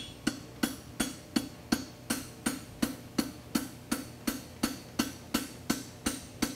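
Blacksmith's hand hammer striking red-hot 3/8 by 3/4 inch concave steel bar on an anvil, a steady run of ringing blows at about three a second as the end of the bar is forged.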